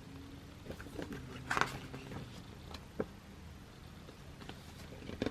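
Faint paper handling as photo book pages are turned: a short rustle about one and a half seconds in and a light tap about three seconds in.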